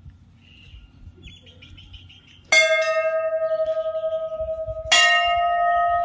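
Temple bell struck twice, about two and a half seconds in and again just under two and a half seconds later; each strike rings on in a long, slowly fading tone.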